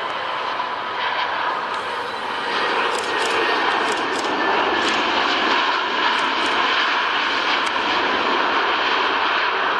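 Jet engines of a British Airways Airbus A319 on touchdown and landing rollout: a steady rushing noise with a high engine whine, growing louder from about two and a half seconds in.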